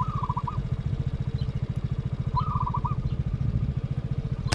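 A motor runs steadily with a fast low throb throughout. Over it, a dove gives short trilled calls, each a quick run of four or five rising notes, three times about two seconds apart.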